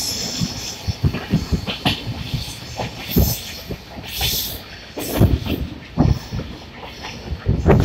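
Passenger train running, heard from inside a coach: steady rumble with wheels knocking irregularly over the rail joints, a louder run of knocks about five seconds in.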